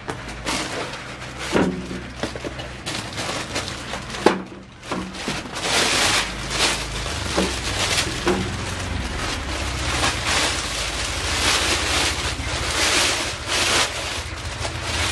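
Clear plastic bag and foam packing being handled, the plastic crinkling and rustling up close, denser from about five seconds in, as a new audio mixer is unwrapped. A single sharp knock comes about four seconds in.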